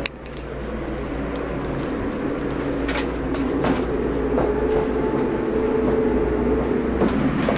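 Amtrak passenger train running, heard from inside the car: a steady low rumble with a few sharp clicks. A steady mid-pitched tone holds for a few seconds in the middle.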